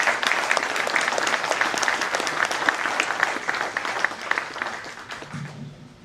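Audience applauding: a dense burst of many hands clapping that thins out and fades away in the last couple of seconds.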